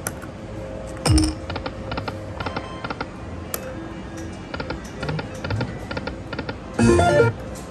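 Aristocrat Lightning Cash video slot machine running its electronic spin sounds: runs of quick ticking clicks as the reels spin and stop, over a steady electronic tone. A louder short electronic jingle comes about a second in and again near the end.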